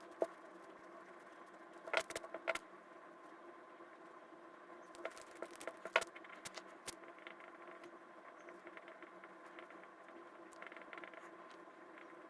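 Scattered sharp clicks and taps at a drawing desk, in small clusters about two seconds in and again from about five to seven seconds in, over a faint steady electrical hum.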